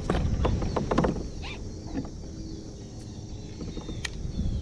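Shimano baitcasting reel cast and reeled in close by: a cluster of sharp clicks and knocks in the first second and a half, then the low rumble of the handle being cranked as the underspin lure is retrieved.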